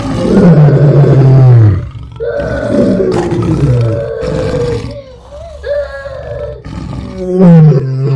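Lion roars: a long, deep roar sliding down in pitch at the start and another near the end, with shorter, higher calls between them.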